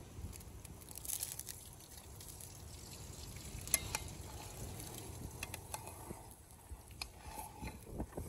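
Faint sizzling of food cooking in an open pot, with a few separate sharp clicks over a low rumble.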